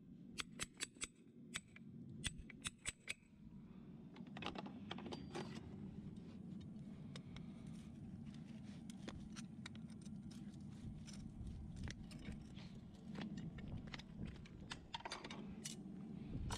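A farrier's hammer tapping a clench cutter against the nail clenches of a horse's shoe: a quick run of sharp metal taps for about three seconds. Then quieter scraping and scattered clicks of hand tools working at the hoof.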